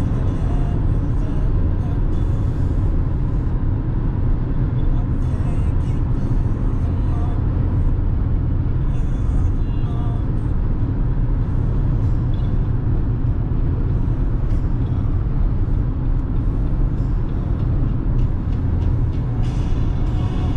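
Steady road and tyre noise inside a moving car's cabin, mostly a low rumble, with no changes.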